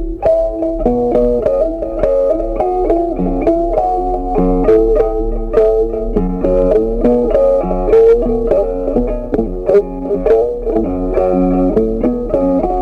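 Background instrumental music: a steady tune of short, quickly changing notes.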